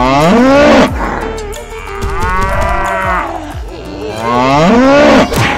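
Cow mooing: three long moos about two seconds apart, the pitch rising in each call.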